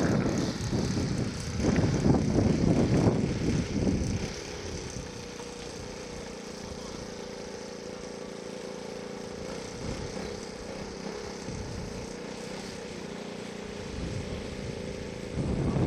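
Radio-controlled scale model airplane in flight, its O.S. 120 four-stroke glow engine and propeller running. It is louder and rougher for about the first four seconds, then settles into a steady, quieter drone.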